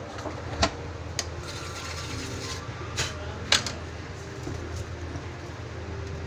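Laptop parts being handled during a keyboard replacement: four sharp plastic clicks and knocks, the two loudest about half a second apart past the middle, over a steady low hum.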